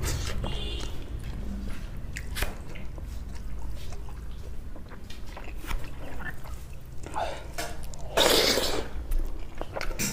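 Close-miked chewing and mouth sounds of a person eating rice and curry by hand, with small clicks and smacks throughout. A louder, noisy sound lasting about a second comes near the end.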